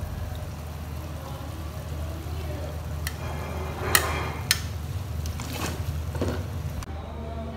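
Metal ladle scraping and clinking against an aluminium cooking pot while cooked mutton korma is scooped out, with a few sharp knocks in the middle, over a steady low hum.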